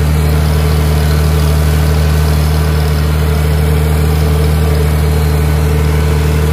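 Gasoline engine of a Farmall tractor running steadily under load in direct drive, heard from the driver's seat, with an even low drone that holds one pitch.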